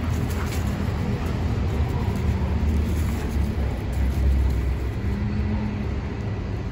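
Steady low rumble of outdoor background noise, with a faint hum rising out of it about five seconds in.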